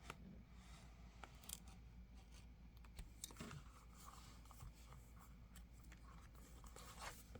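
Faint, scattered snips, clicks and rustles of a plastic planner cover being trimmed with scissors and handled, over quiet room hum.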